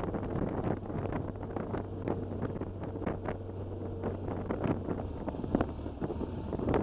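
Wind buffeting the microphone of a camera on a moving motorcycle, with many sharp crackles, over the steady drone of the BMW R1200GS Adventure's boxer twin engine.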